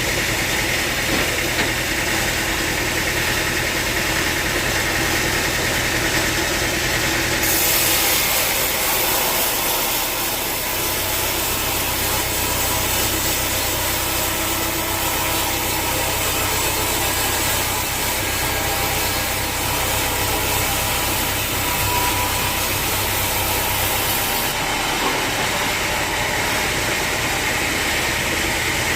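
Sawmill saw's engine running steadily. From about eight seconds in until near the end, a harsher hiss joins it and the engine note drops, as the blade cuts through a log.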